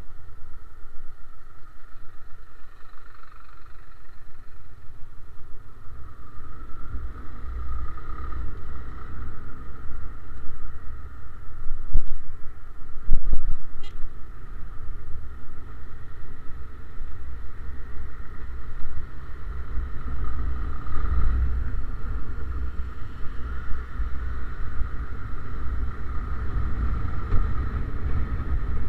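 Motorcycle riding in traffic, heard muffled through a camera sealed in its waterproof case: a constant low rumble with the engine's steady hum, and a couple of thumps about twelve and thirteen seconds in.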